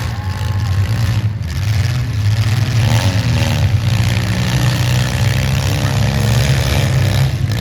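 Demolition derby cars' engines revving hard together as a heat starts, making a loud, steady low rumble with rising and falling revs.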